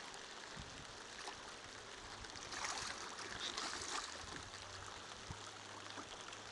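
Water splashing and sloshing as a hooked piraíba (giant Amazon catfish) thrashes at the surface beside the boat, loudest about midway through. A faint steady low hum runs under the second half.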